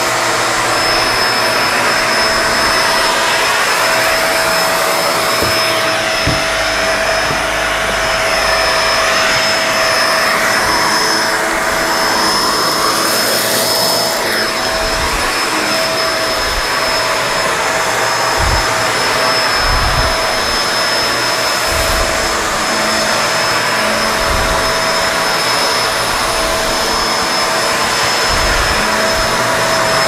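Kenmore Lift-Up Anti-Tangle bagless upright vacuum running steadily on carpet with its brush roll engaged: an even rush of air with a steady motor whine.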